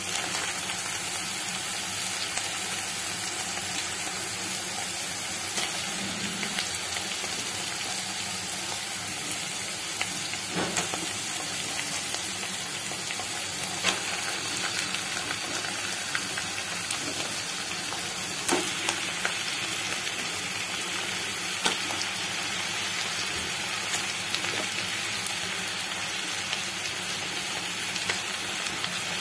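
Chopped onions, green chillies and curry leaves frying in oil in an aluminium pot: a steady sizzle while they are stirred and marinated fish fillets are laid in on top. A few sharp clicks stand out now and then.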